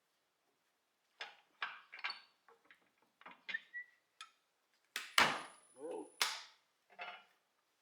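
Metal clanks and knocks as the lathe's tool rest and tools are handled and repositioned. The loudest is a sharp metallic clank about five seconds in, followed by a high ringing note.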